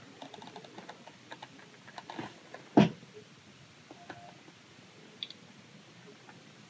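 Light clicks and taps of plastic model-kit sprues being handled, with one sharper knock about three seconds in.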